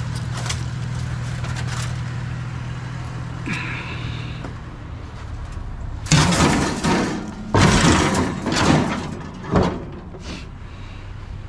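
Truck engine running with a steady low hum, then, about six seconds in, several loud clunks and rattles ending in a sharp knock, as of the truck door being opened and shut.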